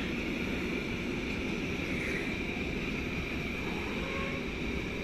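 Intermodal container freight train rolling steadily past, the wagons' wheels giving a continuous rumble with a high whine on top that dips briefly about two seconds in.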